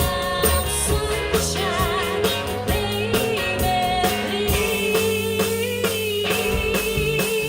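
Live pop-rock band playing, with a woman singing over guitar and a steady drum beat; in the second half she holds one long note.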